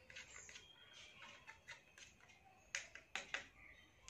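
Stirring stick scraping and tapping faintly against a small plastic cup of water as it is stirred, with a few sharper clicks near the end.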